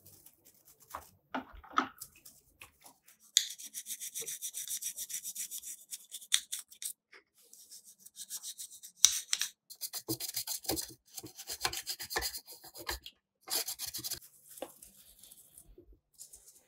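A stiff brush scrubbing small rusty metal parts, in rapid back-and-forth rasping strokes that come in several runs with short breaks. A few handling clicks come first.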